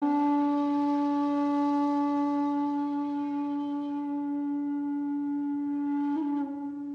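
One long, steady held note from a horn-like wind instrument, played as an intro sting. A little after six seconds in it dips slightly in pitch and gets quieter.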